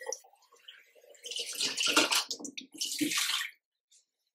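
Tap water pouring into a small glass bottle, in two spells of splashing, the second shorter, then cutting off suddenly.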